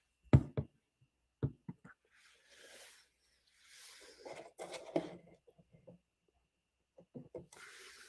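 Art supplies and paper handled on a desktop. A sharp knock comes just after the start and a second one about a second and a half in, followed by stretches of paper rustling and rubbing mixed with light taps.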